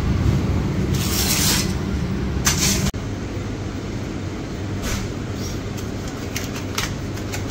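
A vehicle engine rumbling with two short hisses, cut off abruptly about three seconds in; after that, a quieter background with a few light clicks.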